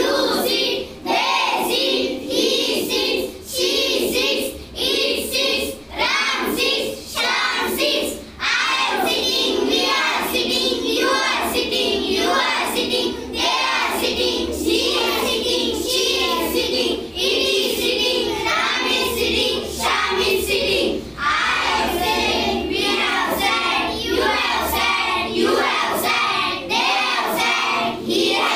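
A group of children singing together in unison, an action song sung in short rhythmic phrases.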